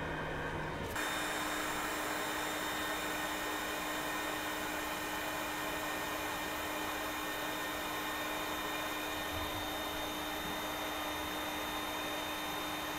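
Hot air rework station blowing steadily, a hiss with a low hum running under it, as it heats the flux and solder on a CPU's bridge pads. The blowing comes on abruptly about a second in.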